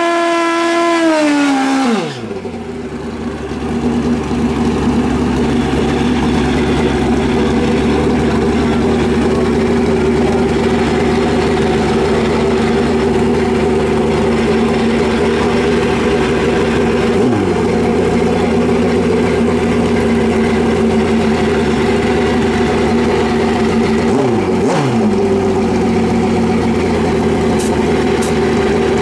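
Drag-racing motorcycle engine held at high revs during a burnout, its pitch dropping sharply to idle about two seconds in. It then idles steadily, with two brief throttle blips later on.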